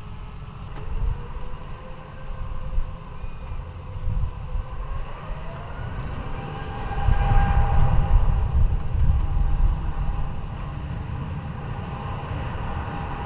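Jet airliner engines rumbling with a whining tone that rises in pitch, swelling loudest about seven to eight seconds in, then settling to a steadier rumble.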